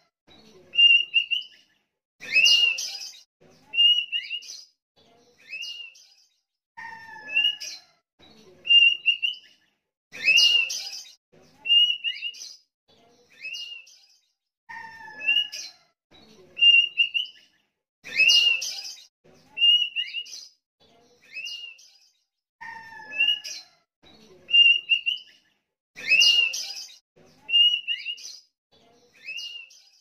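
Sooty-headed bulbul (kutilang) singing persistently: short whistled phrases of a few clear notes, repeated every second or two, with a louder, scratchier phrase about every eight seconds.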